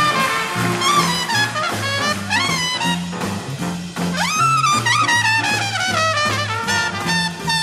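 Live swing big-band jazz: trumpet solo playing fast upward rips into the high register, about two and four seconds in, and bending back down, over a steady bass line.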